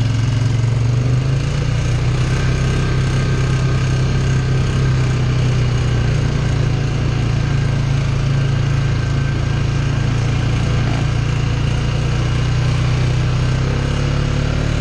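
Polaris Sportsman ATV engine running steadily under way on a dirt trail, a low drone with small changes in pitch and a slight rise near the end.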